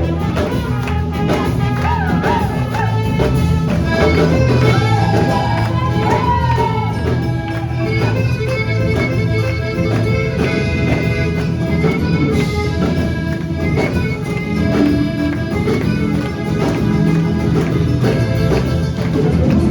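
Latin American folk-style music playing, with singing over instruments and percussion.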